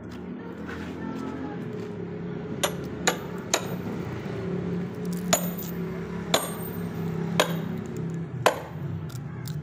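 Sledgehammer blows on a log with a wedge in it, splitting firewood: seven sharp, ringing metal-on-metal strikes, about a second apart, starting a few seconds in. A steady low hum runs underneath.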